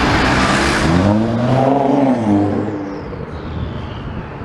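Cars passing close by on a road. Tyre noise comes first, then one engine's note rises and falls as it goes past. The sound fades away in the second half.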